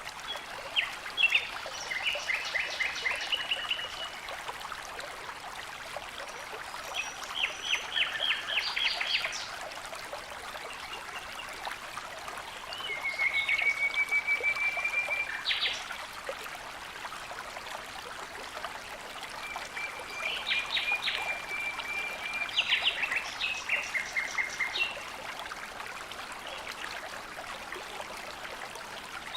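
Steady rush of running water with a songbird singing over it, repeating short trilled phrases every few seconds.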